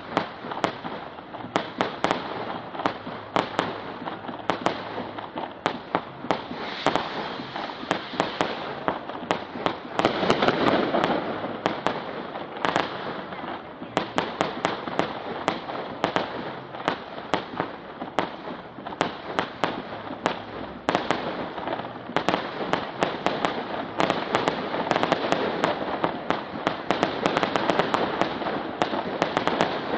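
Fireworks display: a rapid string of bangs and crackles from bursting aerial shells, several a second, over a rushing hiss that swells loudest about ten seconds in.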